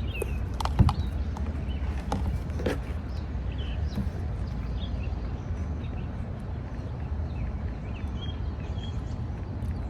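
Outdoor ambience: a steady low rumble with a few sharp clicks or crunches in the first three seconds, the loudest just under a second in, and small high chirps scattered through.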